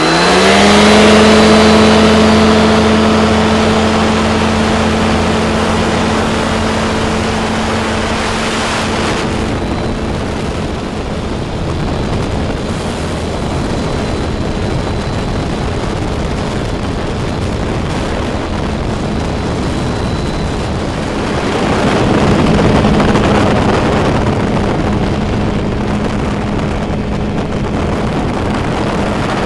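Weight-shift microlight trike's engine opening up sharply to full power for the takeoff run, then running steadily through the climb. Wind rushes over the microphone throughout and grows louder about two-thirds of the way through.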